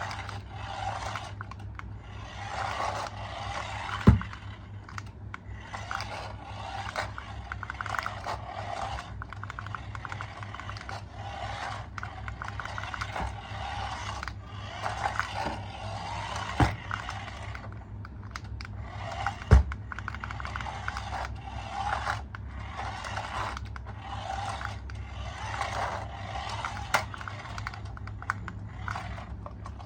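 Scraping and rubbing in many short bursts, with three sharp clicks and a steady low hum underneath.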